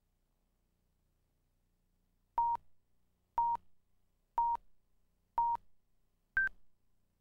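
Countdown-leader beeps counting down to the start of a TV commercial: four short beeps at one pitch, one a second, then a fifth, higher-pitched beep.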